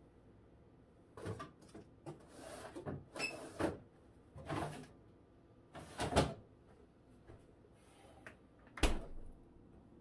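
Rummaging in a refrigerator: containers and packages knocking and rustling as they are moved about on the shelves, then the refrigerator door shut with a sharp thud near the end.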